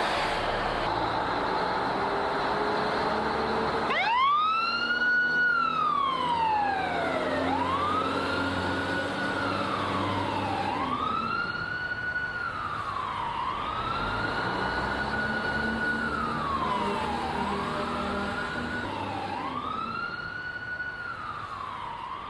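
Fire engine siren wailing over a running vehicle engine. About four seconds in the siren starts, each cycle rising quickly, holding briefly and then sliding down, over and over about every three seconds.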